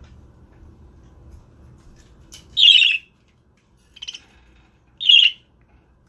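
Budgerigar giving three short calls in the second half, about a second apart, the middle one fainter than the other two.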